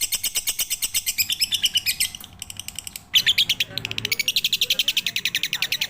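Lovebird chattering in a rapid, even string of high chirps, about a dozen a second. It breaks off for about a second midway, then starts again louder.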